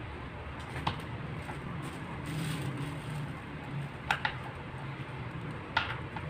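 Hex key working a screw under an office chair's armrest: a few short sharp clicks, two of them close together about four seconds in, with a brief rustle around the middle.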